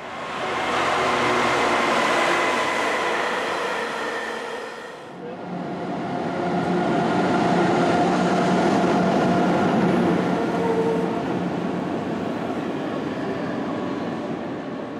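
Electric passenger trains running: a few seconds of loud electric-train noise, then, after a brief dip, a red electric locomotive hauling a rake of passenger coaches past, a steady rumble of wheels and running gear with a low hum and a higher steady tone.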